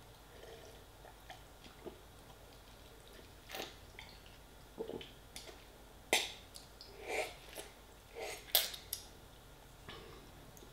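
A person sipping and slurping broth from a paper noodle cup, with scattered small mouth clicks and gulps, mostly between about three and a half and nine seconds in. The sounds are faint and irregular.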